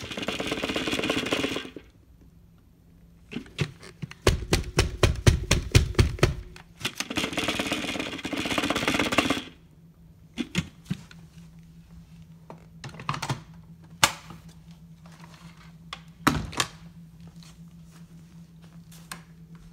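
Dyson vacuum run in short spurts over carpet: runs of rapid clicking and two bursts of motor and suction noise, each lasting about two seconds. In the second half come scattered single knocks and thuds of the machine being handled.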